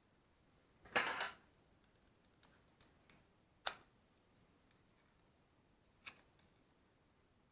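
Handling noises at a workbench: a short clatter about a second in, then two sharp clicks a few seconds apart, with faint ticks between. No motor is running.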